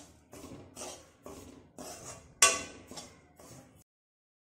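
Metal spoon scraping and stirring a dry semolina, coconut and sugar mixture in a metal kadhai as it roasts, about two strokes a second with one louder scrape a little past halfway. The sound cuts off abruptly near the end.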